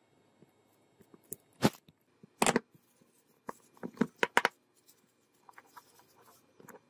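Hands handling a small chrome revolver-shaped oil lighter and wiping it with a paper tissue: irregular sharp clicks of metal parts and crinkling rustles of the tissue. The loudest come in bunches through the middle, with fainter ones near the end.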